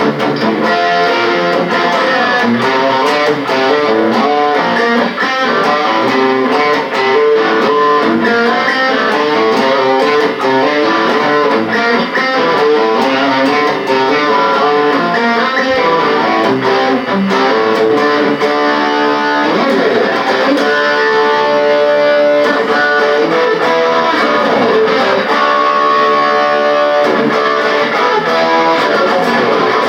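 Guitar music: quick plucked notes running continuously at a steady level.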